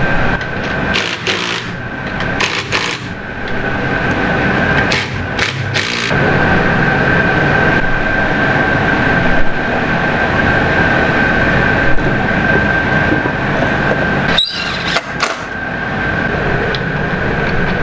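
A steady mechanical drone with a constant high whine, from an unidentified running machine, under a few sharp clicks and knocks of metal parts being handled.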